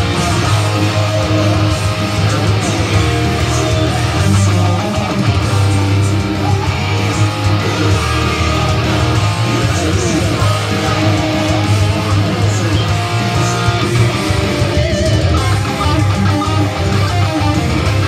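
Electric guitar played continuously through a Kemper Profiling Amplifier.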